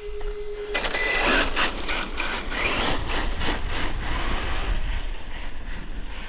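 Losi Tenacity MT 1/10-scale electric RC monster truck launching on a full-throttle speed pass: the motor whines, rising in pitch, over the rattle and grit of tyres on a rough dirt surface. It grows fainter near the end. A steady tone is heard first and stops just under a second in, as the run starts.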